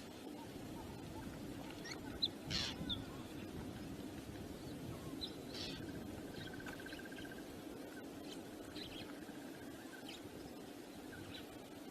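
Wind rumbling steadily on the outdoor microphone, with scattered short bird chirps over it, a louder call a little over two seconds in and a brief trill partway through.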